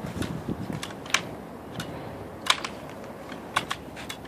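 Irregular sharp clicks and light knocks, about a dozen, a few louder than the rest, as a stopped electric chainsaw's bar is lifted out of a cut in a plastic pipe. The saw's motor is not running.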